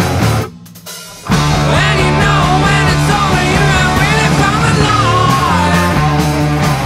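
Stoner rock band playing. The band stops for under a second near the start, then comes back in at full volume.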